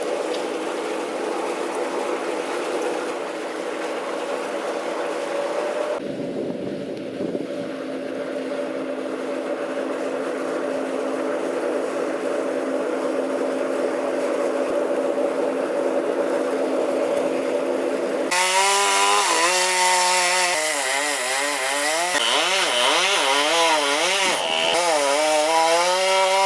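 Chainsaw running at a steady high speed, then from about two-thirds in revving and cutting, its pitch rising and falling again and again as the chain bites into the wood.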